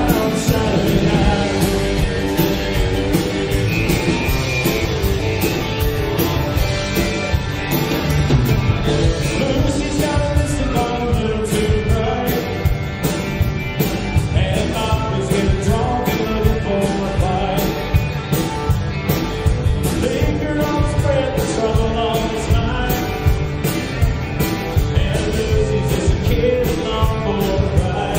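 Live country-rock band playing at full volume: electric and acoustic guitars, bass and a drum kit keeping a steady beat, with a man singing lead.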